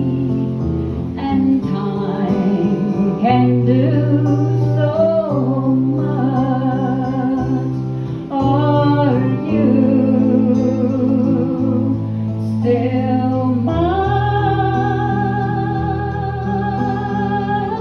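A woman singing with vibrato, accompanied by a man playing acoustic guitar; she holds one long note near the end.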